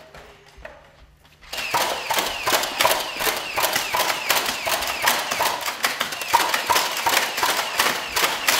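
A rapid, even series of sharp clacks, about three or four a second, starting about a second and a half in.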